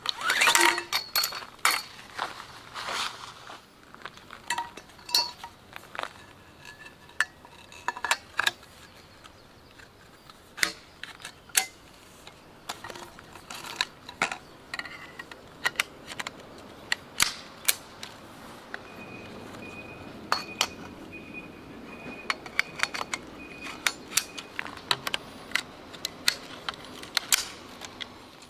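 Repeated light metallic clinks and knocks, a few with a short ring, as metal camp gear is handled.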